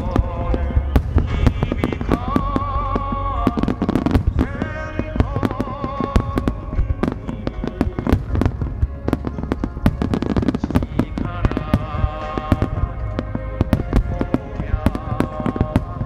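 Fireworks starmine barrage with large aerial shells: a dense, continuous run of sharp bangs and crackles, many each second, over music with a wavering melody.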